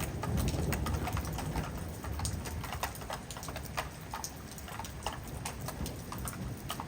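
Heavy storm rain, with drops tapping irregularly and close by on a hard surface over a steady low rumble of wind.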